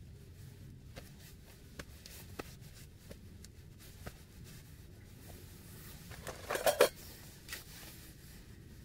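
Quiet close handling sounds: scattered light clicks and rustles of hands and a paper towel, then a short burst of scraping and clattering about six and a half seconds in as a fixed-blade knife is picked up.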